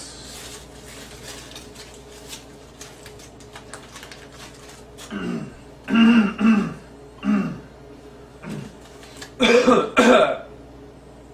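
A man clearing his throat several times from about halfway in, then two harsh coughs near the end. Before that, faint crinkling of aluminium foil as food is unwrapped.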